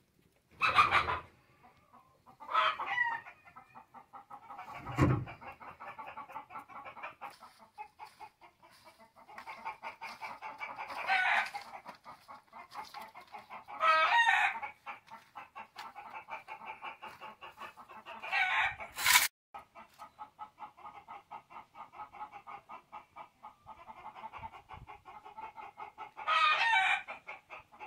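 Chickens clucking steadily, with louder calls every few seconds. A sharp click comes about two-thirds of the way through.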